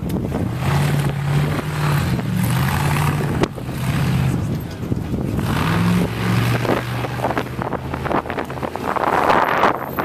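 Off-road race car engine revving up and down in bursts as the car climbs over rocks, with wind noise on the microphone.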